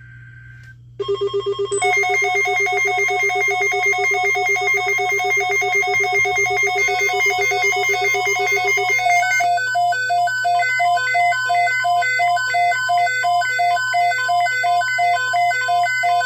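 Electronic emergency alert tones. A rapid, loud electronic trill begins about a second in, and about nine seconds in it changes to a repeating run of short beeps stepping between several pitches. A steady low hum lies underneath.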